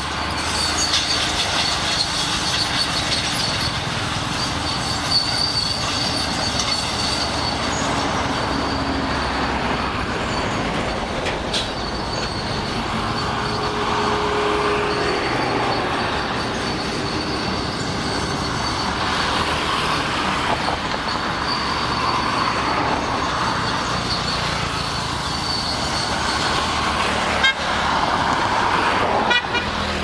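Shantui SD16 crawler bulldozer running steadily as it works, with road traffic going by. A vehicle horn sounds briefly about halfway through.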